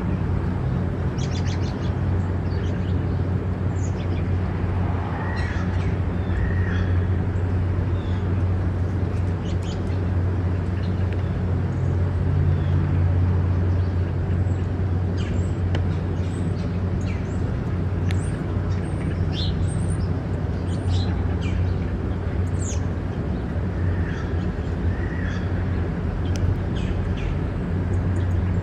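Red-bellied woodpeckers calling, a few rolling calls about five to seven seconds in and again near the end, with many short high chirps scattered throughout. A steady low hum runs underneath.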